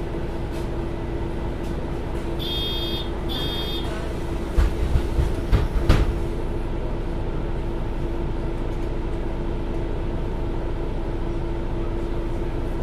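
MAN Lion's City NL323 city bus running with a steady engine drone. About two and a half seconds in come two short electronic beeps, then a cluster of loud thumps and knocks over roughly a second and a half.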